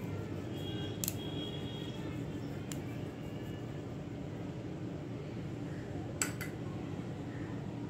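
Steady low room hum, with a few light clicks, the loudest about six seconds in.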